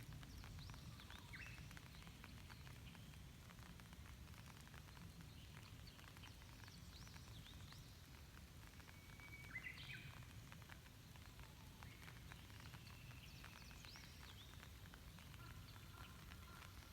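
Faint light rain with scattered drops ticking over a low steady rumble, while birds call with short swooping chirps and a couple of held whistles, one about halfway through and another near the end.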